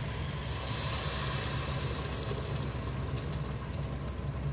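Blended tomato poured into a hot pot of browned onion, garlic and ginger, hissing and sizzling, loudest about a second in and then easing off. A steady low hum runs underneath.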